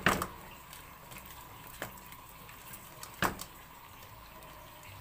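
Tied live mud crabs being shifted about in a steel wok, their shells knocking against the metal a few times: a sharp knock right at the start, a small one near two seconds in and another sharp one a little after three seconds.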